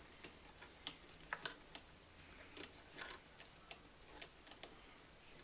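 Faint, irregular small ticks and light scrapes of nylon paracord being handled and pulled tight into a snake knot.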